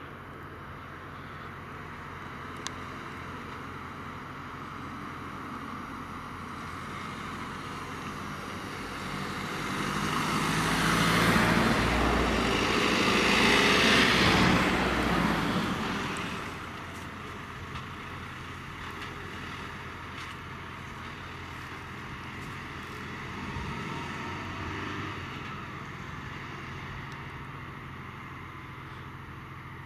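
Renault Master emergency vans driving slowly past: engine and tyre noise swells as the first van passes close, loudest about halfway through, then fades away. A smaller swell follows later as another vehicle passes.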